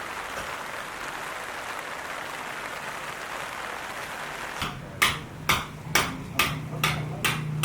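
A steady hiss, then from about two-thirds of the way in a run of sharp hammer blows, about two a second, over a low hum.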